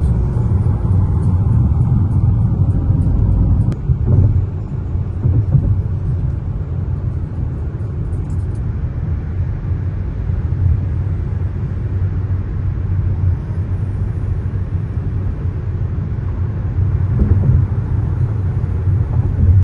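Steady low rumble of a car cruising on a highway: engine and tyre road noise at speed.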